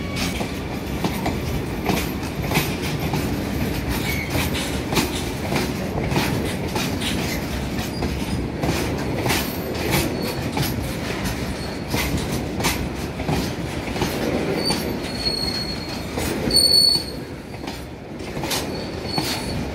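Freight train tank wagons rolling past close by: steady wheel rumble with an irregular clatter of wheels over rail joints. Brief high-pitched wheel squeal sets in a few times in the second half.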